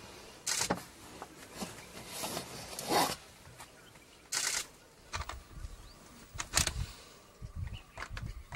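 Camera shutters firing in short rapid bursts, several times, with a low rumble in the second half.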